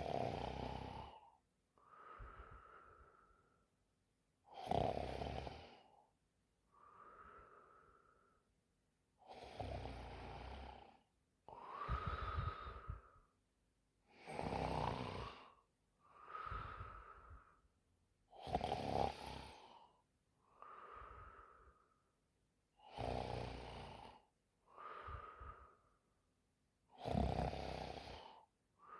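A sleeping woman snoring in a steady rhythm: about seven loud, rattling snores, each followed by a softer, whistling breath, with brief quiet between.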